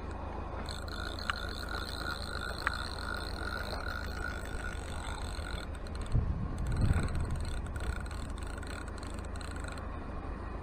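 Hardy Altex No. 2 Mk V fixed-spool reel being wound while playing a hooked fish, giving a steady whirring whine that stops near the end. Two sharp clicks come in the first few seconds, and handling bumps on the microphone come about six to seven seconds in.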